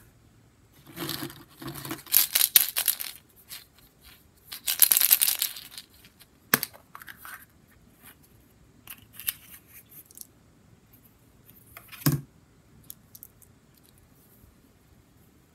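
Hollow plastic Easter eggs clattering against each other in a plastic bucket as hands rummage through them, in two bursts, then a few sharp plastic clicks as one egg's two halves are pulled apart.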